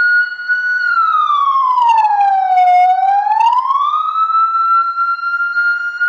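Electronic 12-volt, 200-watt siren through its horn speaker, holding a steady high tone. About a second in it glides down slowly and back up over some three seconds, then holds steady again.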